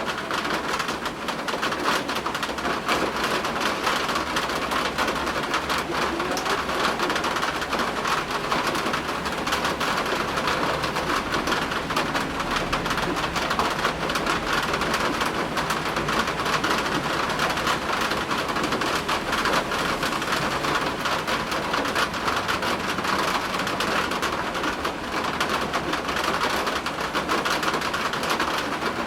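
Steady heavy rain pattering down, with a low, distant rumble of thunder swelling in the middle.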